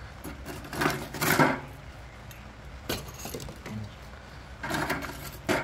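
Sticks of hard lump charcoal knocking and clinking against each other and the metal grill bowl as they are set in, in short clusters about a second in, near three seconds and near the end.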